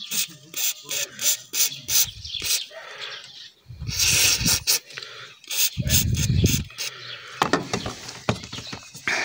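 Daewoo Lanos car door being worked back and forth, creaking and squeaking, with short clicks and knocks from the door.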